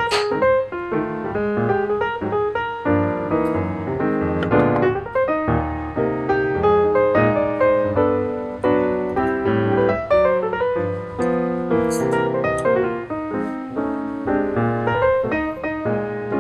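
Background piano music: a continuous run of melodic piano notes, with a few brief sharp clicks.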